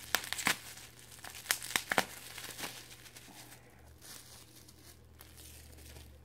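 Plastic bubble wrap being unwrapped and crumpled by hand, with a run of sharp crackles in the first two to three seconds, then softer rustling.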